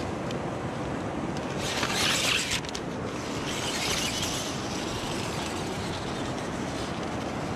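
Axial Capra 4WS RC crawler's electric motor and geared drivetrain whirring in two short bursts, with a few sharp clicks after the first, over a steady background hiss.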